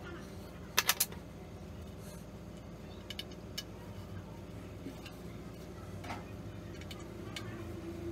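Wooden pieces handled and knocked together: three sharp clicks close together about a second in, then a few light scattered taps as a drilled pine block and a small wooden dowel are test-fitted, over a steady low hum.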